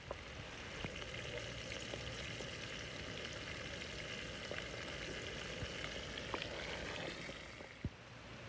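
Food frying on a hot tawa griddle: a steady sizzle with scattered small crackles that dies away near the end.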